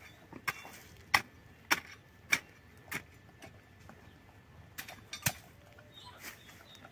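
Repeated sharp blows of a hand tool, about one every 0.6 seconds: five in a row, then a pause and two more near the end.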